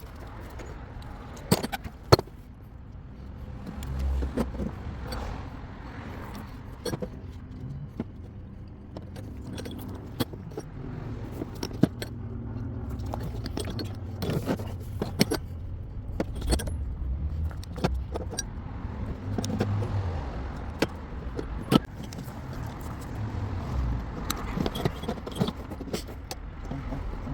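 Scattered light metallic clinks and knocks from copper pipe, fittings and tools being handled during valve fabrication, over a steady low rumble.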